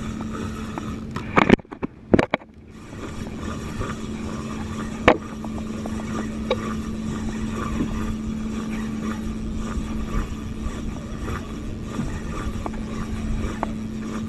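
Steady hum of the banca's motor running under a low wash of noise, with a few sharp knocks about a second and a half in, again just after two seconds, and near five seconds as the rod and reel are handled. The fish is pulling drag, but the spinning reel's drag has no clicker, so no ticking is heard.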